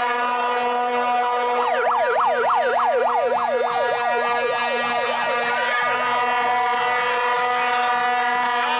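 Plastic vuvuzela horns held on one steady note. From about two seconds in, for around four seconds, a fast up-and-down yelping siren sweeps over them.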